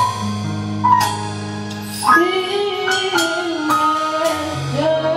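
A girl singing lead over a live band of electric bass, piano and drum kit, with drum and cymbal strikes about once a second.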